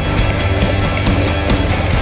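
Loud background rock music with a steady drum beat.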